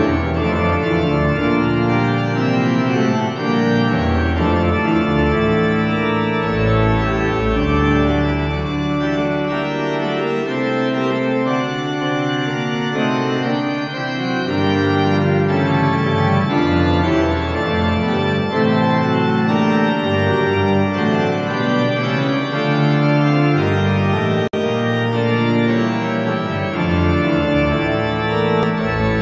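Sampled pipe organ of St Mary-le-Bow, London, played through Hauptwerk on a two-manual console with pedals: full, sustained chords moving over deep pedal bass notes that enter and drop out.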